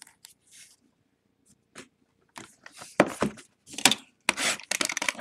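Trading cards and a cardboard card box being handled: a few faint taps, then from about two seconds in a quick run of rustles and scrapes.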